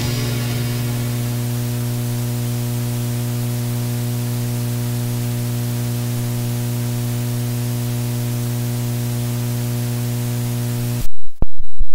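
Blank tail of a cassette tape playing after the last music fades in the first second: a loud steady tape hiss with a strong electrical hum. About a second before the end it cuts off abruptly, with a few sharp clicks.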